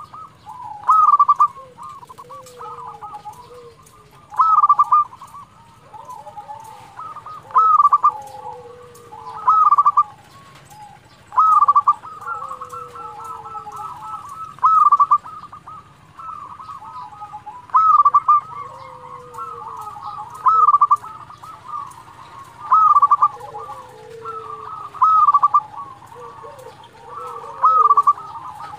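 Zebra dove (perkutut) singing: its rolling cooing song repeated as about eleven loud phrases, one every two to three seconds. Softer, lower falling notes sound between the phrases.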